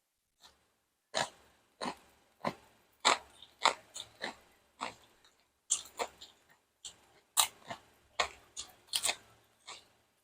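Close-up chewing with loud, sharp crunches of crisp food, about one to two a second at an irregular pace.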